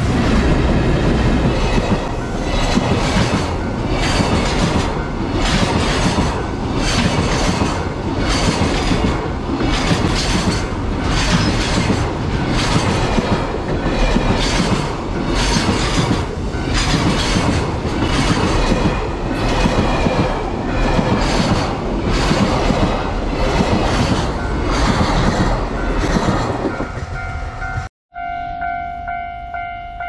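JR Freight container train hauled by an EF210 electric locomotive passing close by: the wagons rumble and the wheels clack over the rail joints in a steady rhythm. About 28 s in the train sound stops abruptly, leaving a level-crossing warning bell ringing steadily.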